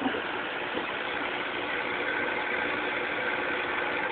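Air-driven aquarium sponge filter bubbling steadily, air rising up its lift tube and breaking at the water's surface.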